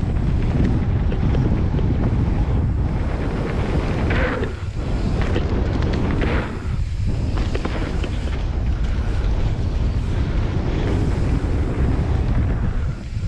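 Wind buffeting the camera microphone on a fast mountain-bike descent, a steady low rumble, with brief rattles and clatters from the bike over bumps a few times, clearest about four and six seconds in.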